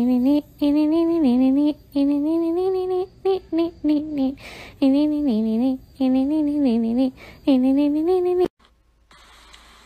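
A voice humming or singing a wordless tune in short, mid-pitched phrases that slide between notes, broken by brief pauses; it cuts off abruptly about a second before the end.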